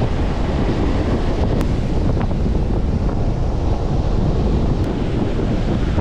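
Rough storm surf breaking and washing up a sandy beach, under strong wind buffeting the microphone with a steady low rumble.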